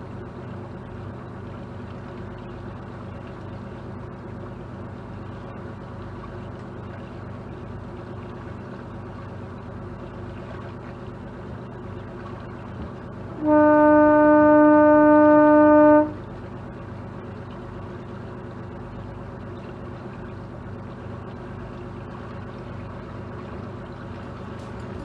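A motor boat's horn sounds one long, steady blast of about two and a half seconds, a little past the middle, as a signal on leaving the berth. Under it the boat's engine runs with a steady hum.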